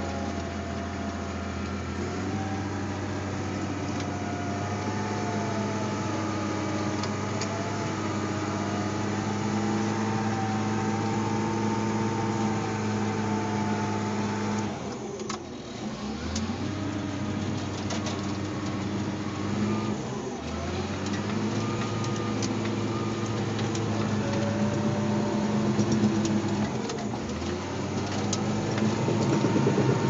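Cat D5 bulldozer's diesel engine running while the dozer works, heard from inside the cab, with a wavering whine over it. The engine note drops about halfway through, then picks back up several times.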